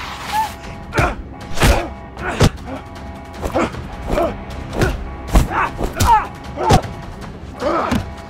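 Hand-to-hand fight sound effects: about ten sharp punch and kick hits, roughly one every half to one second, some with short grunts, over a steady music score.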